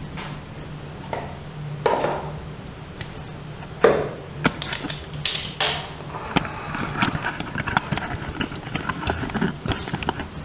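Scattered knocks and clicks of things being handled, with louder thuds about two, four and five and a half seconds in, over a steady low hum.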